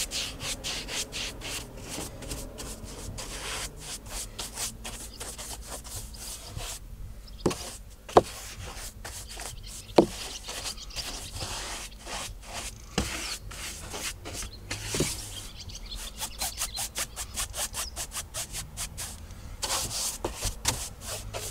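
Shaving brush worked dry over a car's plastic interior door trim and speaker grilles, its bristles rubbing in quick repeated strokes to lift dust. A few sharp taps stand out, the loudest a little before and at the middle.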